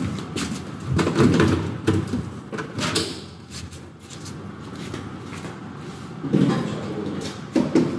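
Camping gear being shifted and set down inside a steel elevator car: plastic storage boxes bumping and scraping, in irregular knocks and clatter, loudest about a second in and again near the end.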